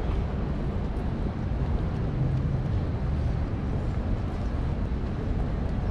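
Steady low rumble of a busy city street, traffic-like and without clear individual events.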